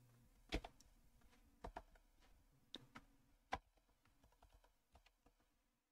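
Computer keyboard keystrokes: a handful of faint, separate key clicks at uneven intervals as a short command is typed.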